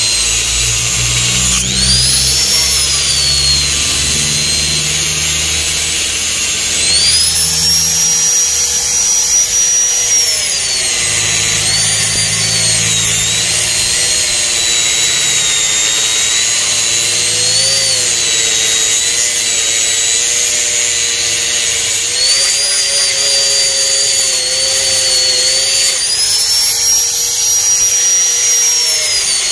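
Handheld angle grinder running continuously while its disc cuts along the edge of a fiberglass mould to open it. Its high whine rises and falls in pitch several times.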